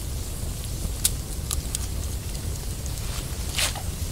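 Wood campfire crackling: a few sparse sharp pops, the loudest about three and a half seconds in, over a steady low rumble.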